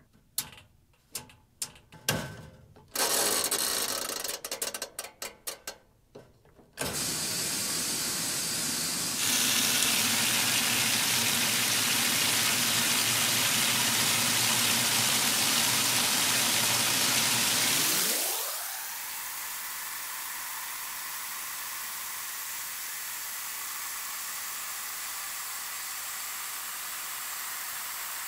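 Magic Chef 20-pound top-load washer being started: a run of clicks as the control dials are turned, then about seven seconds in the fill begins and water pours steadily into the tub onto the clothes. About 18 seconds in, the deep part of the rush fades and a lighter, steady hiss of water goes on.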